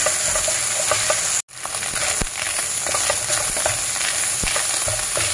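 Minced meat and vegetables sizzling in oil in a non-stick pan while a wooden spatula stirs and scrapes, with scattered clicks of the spatula against the pan. The sound cuts out for a moment about a second and a half in.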